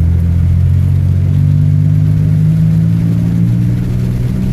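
Car engine running steadily under load, heard from inside the cabin, its tone stepping slightly higher about a second in, over a faint hiss of tyres on the wet road.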